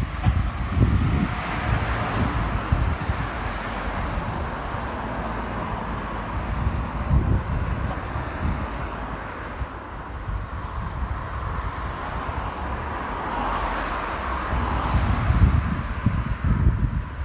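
Wind gusting on the microphone, with road traffic: one car passing in the first few seconds and another swelling and passing near the end.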